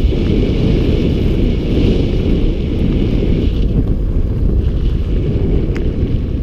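Wind buffeting a helmet-mounted camera's microphone as a mountain bike rides fast down a dirt track, a steady loud rumble. Over it runs a higher hiss from the tyres on the gravel, which drops out for about a second in the middle.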